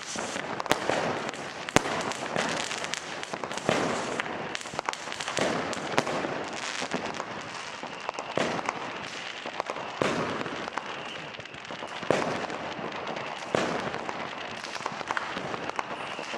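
New Year's Eve fireworks and firecrackers going off all around in a dense, continuous crackle of small bangs, with louder single bangs standing out several times.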